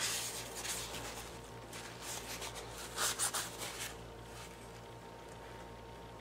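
Paper towel rubbing and rustling as a toy steam engine is wiped down, in short scattered strokes, the loudest about three seconds in.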